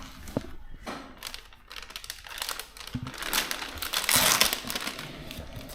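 Plastic wrapper of a new motorcycle service filter being torn open and crinkled by hand, in irregular crackles, loudest a little past the middle.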